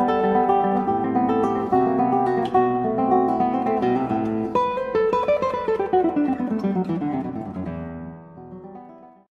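Acoustic guitar music, plucked notes with a run falling in pitch about halfway through, then fading out and stopping just before the end.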